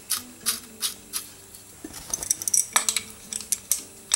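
Small metal clicks and clinks as the bottom drain plug is fitted into an Amal Monobloc carburetor body: a few light ticks about three a second at first, then a busier run of clinks in the middle.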